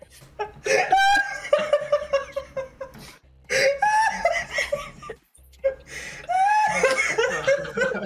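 People laughing, in three long bouts with short breaks between.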